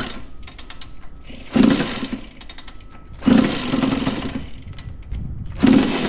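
1989 Suzuki RM125's two-stroke engine sputtering on its first start after a rebuild, cold and barely running. It is given three bursts of throttle about two seconds apart, each fading back to a rough idle.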